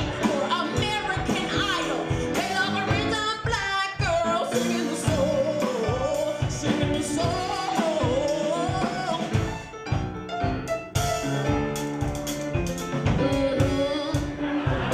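A woman's soulful, gospel-style singing voice swoops up and down in long runs over a live band with drum kit.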